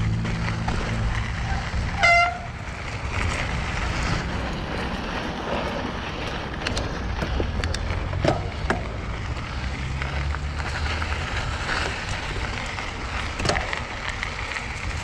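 Mountain bike rolling down a dirt trail: steady tyre rumble and wind noise. About two seconds in, the disc brakes give a short pitched honk, the brake squeal the rider calls a goose honk, with a few briefer squeaks and clicks from the bike later.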